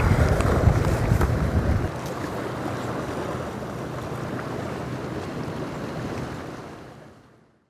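Wind buffeting the microphone over the wash of the sea against a rocky shore. The heavy low wind rumble drops away about two seconds in, leaving a steady soft wash of water that fades out near the end.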